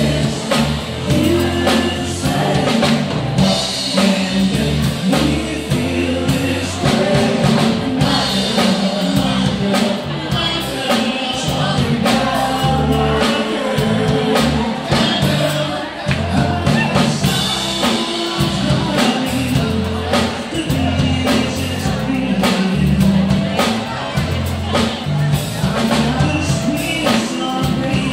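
Live band playing upbeat dance music, with a drum kit keeping a steady beat and a singer.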